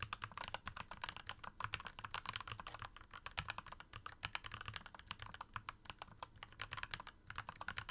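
Typing on a mechanical keyboard fitted with PBT keycaps: a quick, steady stream of keystroke clicks. PBT's density and damping are said to give a lower, thockier sound than ABS or polycarbonate.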